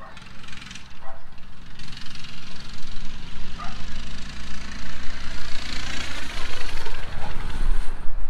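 Small engine running steadily.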